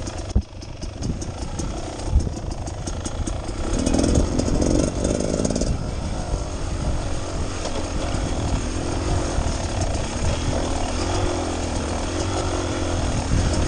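Beta Xtrainer 300 two-stroke single-cylinder dirt bike engine running at low revs on a rough trail, its pitch wavering up and down with the throttle. Through the first half there is a run of clicks and rattles as the bike goes over rocky ground.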